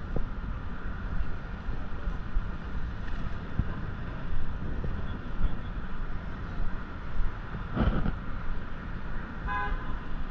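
City street traffic noise with a steady low rumble, a brief thump about eight seconds in, and a short single vehicle horn honk near the end.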